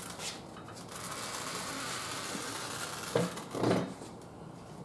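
A steady buzzing whir from the tyre-changing machine as the bead is worked off the rim, with two short, louder scraping noises a little after three seconds in.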